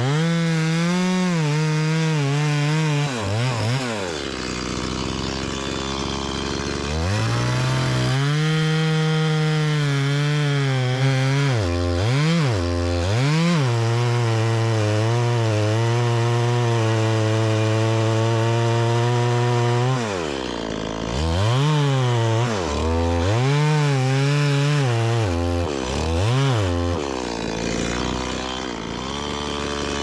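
Two-stroke chainsaw cutting wood, held at full throttle for long stretches. It drops to idle a few seconds in and again near the end, with several quick blips of the throttle in between.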